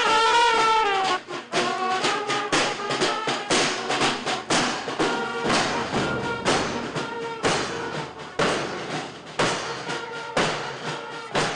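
Street marching band playing: a brass melody, loudest in the first second, over bass drums beating about twice a second.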